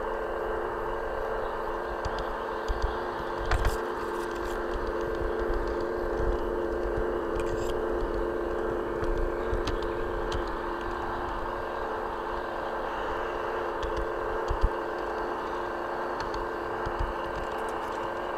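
LGB garden-scale model train running along its outdoor track, heard from a camera riding on the train: a steady whine from the electric motor and gearing over wheel-on-rail rumble, with a few sharp clicks. Wind buffets the microphone with uneven low thumps.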